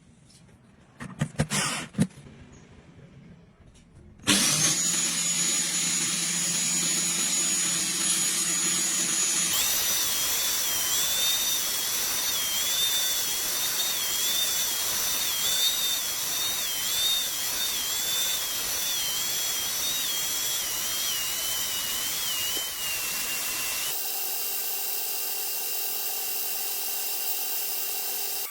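A few knocks, then a power tool running steadily at high speed with a whine that wavers as it works. The sound changes abruptly a few times, as between separate clips.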